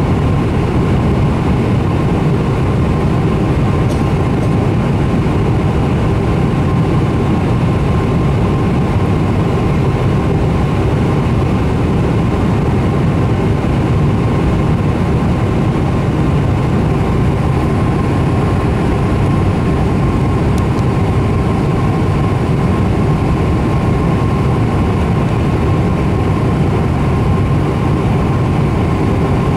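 Jet airliner cabin noise on the approach to land: a steady, loud roar of engines and rushing air with a thin, even whine over it.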